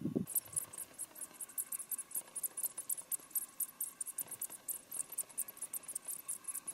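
An insect, cricket- or grasshopper-like, chirping in fast, regular, very high-pitched pulses, about eight a second.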